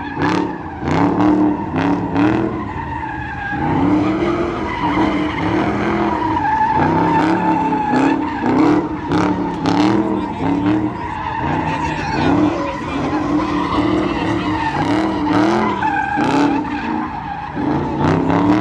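A car doing donuts: its engine revs rise and fall over and over while the tyres squeal steadily against the pavement.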